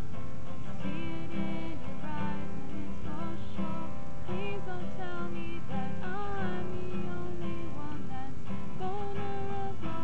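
Fender steel-string acoustic guitar strummed in a steady rhythm, with a woman's voice singing a slow, gliding melody over it.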